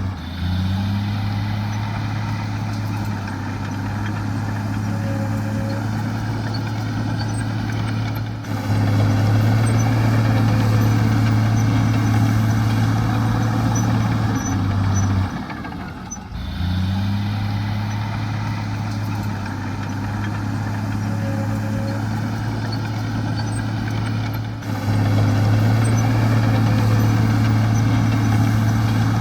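Heavy diesel engine of earthmoving machinery running steadily, growing louder twice as it takes up load and dipping briefly in between. The same stretch of engine sound repeats about every 16 seconds.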